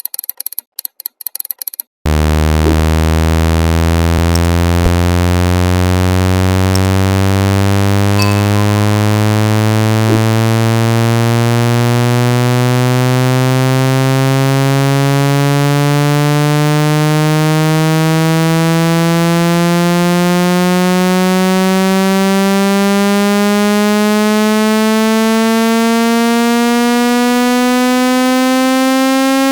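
Synthesized speaker water-ejection tone. After about two seconds of rapid, stuttering high-pitched clicks, a loud, buzzy low tone rich in overtones starts and slowly rises in pitch.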